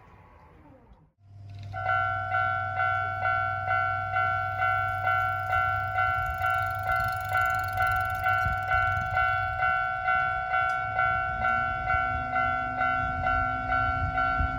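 Japanese railway level-crossing warning bell ringing in an even two-tone ding about twice a second, the signal that a train is approaching and the barriers are coming down. It starts just under two seconds in, and a low hum joins near the end.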